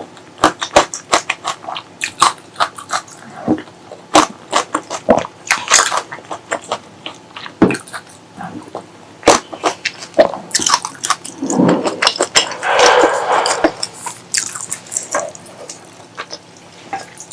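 Close-miked eating sounds: irregular sharp, wet mouth clicks and smacks of chewing, with a longer, denser stretch of chewing about eleven to fourteen seconds in.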